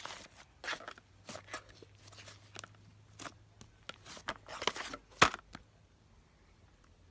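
Slime being squeezed and worked by hand: an irregular run of short crackles and squelches, the loudest about five seconds in.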